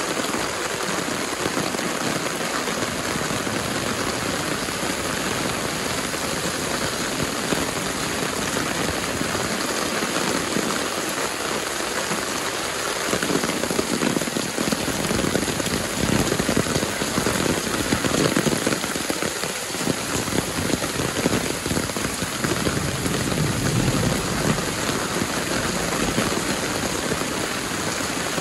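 Heavy rain pouring onto a wet paved alley: a dense, steady hiss of rain that swells a little louder and fuller through the middle stretch.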